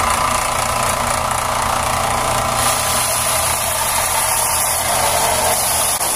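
Central Machinery combination belt and disc sander running with a steady motor hum, its abrasive belt grinding a thin red oak bow limb pressed flat against it. The sanding hiss grows louder about two and a half seconds in, as the wood bears on the belt.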